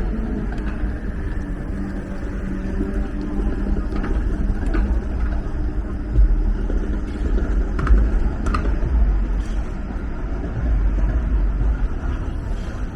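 Street traffic at a city intersection: vehicles running and passing with a steady low rumble, and a few short sharp clicks around the middle.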